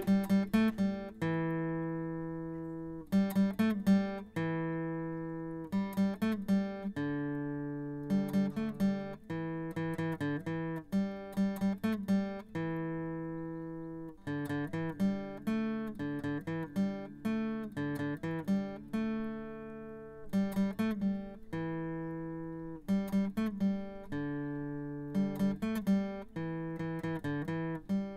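Background music on acoustic guitar: a short picked phrase about every two seconds, each ending on a note left to ring and fade.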